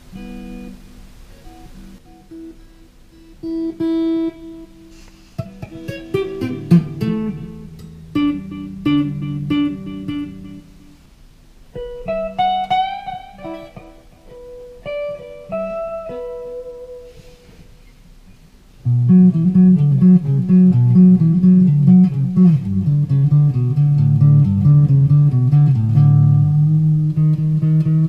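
Les Paul-style electric guitar played through a small combo practice amplifier: scattered single notes and short phrases with string bends, then about two-thirds of the way in, much louder, denser chord playing.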